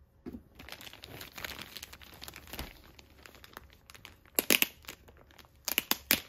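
Clear plastic wrapping crinkling as it is handled and picked open, with two bursts of sharp, louder crackling about four and a half and six seconds in.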